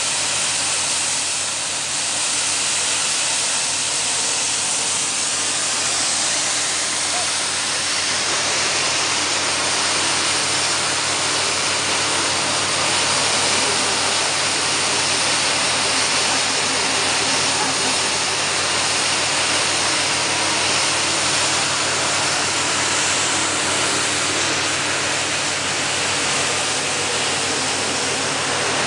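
Steady rushing of fast river rapids, with the low hum of a running engine underneath.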